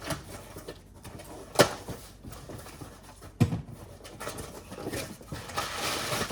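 A small cardboard shipping box being handled and opened: two sharp knocks about a second and a half and three and a half seconds in, light clicks between them, and a longer rustle near the end.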